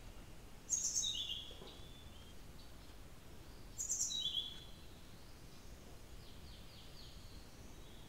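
Blue-throated flycatcher calling: two loud, short, high phrases about three seconds apart, each a very high note followed by a slightly lower, falling whistle, with fainter notes in between. A steady low background hiss runs underneath.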